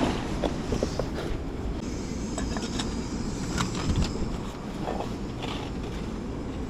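Gale-force wind buffeting the microphone, a dense low rumble, with scattered short sharp knocks and rattles through it.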